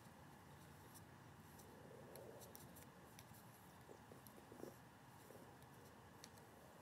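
Near silence: faint background hiss with scattered faint ticks and clicks.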